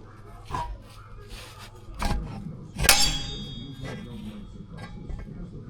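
Metal tools or parts knocking and clanging during hands-on work on a Honda EB5000X generator: a few sharp knocks, the loudest about three seconds in, ringing briefly.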